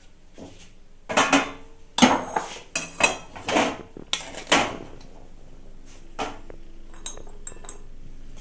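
A spatula scraping and scooping semolina out of a metal kadai, a run of scrapes in the first five seconds, followed by a few lighter clicks.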